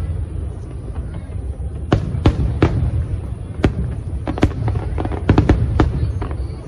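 Fireworks display: sharp aerial shell bangs over a steady low rumble. They start about two seconds in, come singly through the middle, and several burst in quick succession just past five seconds.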